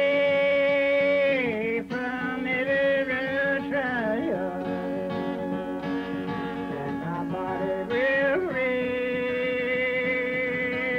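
Old-time Appalachian song: a man singing slow phrases of long, high held notes that bend downward at their ends, with a plucked string instrument accompanying.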